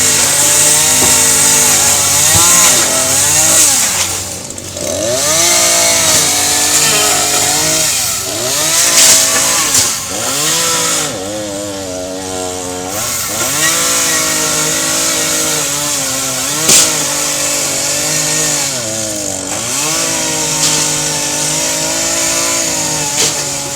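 Gas chainsaw engine running loud and revving up and down, its pitch falling back to idle three times before climbing again.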